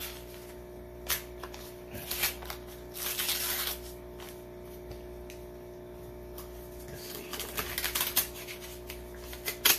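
A paper envelope being opened and its contents handled by hand: scattered clicks and crackly paper rustles, with a short tearing rip about three seconds in and a busier run of crackling near the end.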